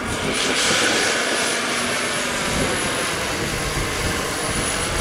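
Jakadofsky Pro 7000 model turbine whining in a scale SA 315B Lama RC helicopter in flight, over the rushing of its rotor blades. The thin high whistle holds steady and rises slightly about two seconds in.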